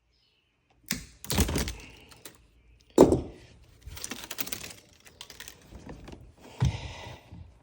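Irregular clattering knocks and scrapes as a boat steering cable is worked through the hull. A heavy thunk about three seconds in is the loudest, and another knock comes near the end.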